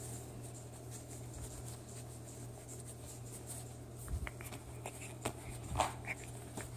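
Faint scratchy rustling of a pet raccoon's fur and paws moving against denim as it is stroked on a lap, with a few light clicks and two soft bumps in the second half.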